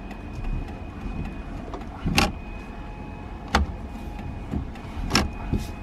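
Mazda RX-7's electric transmission-cooler fan running with a faint steady whine, and the turn-signal flasher clicking sharply about every second and a half.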